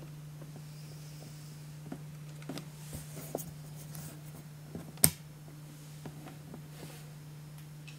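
Quiet indoor room tone with a steady low hum and scattered small, irregular clicks and knocks, the loudest a single sharp click about five seconds in.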